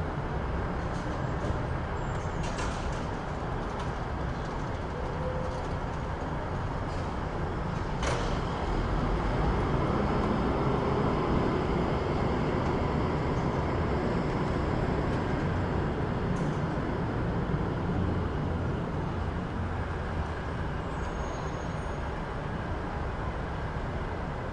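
City street traffic: a steady low rumble of vehicles that swells as one passes close about ten seconds in, with a short sharp knock about eight seconds in.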